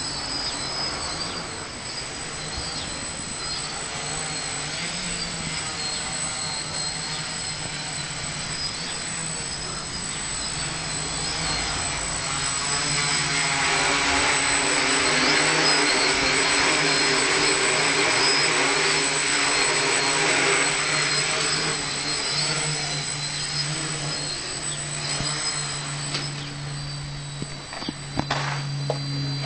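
DJI Flame Wheel quadcopter's brushless motors and propellers whining and buzzing in flight, growing louder through the middle and easing off again. A few sharp clicks near the end.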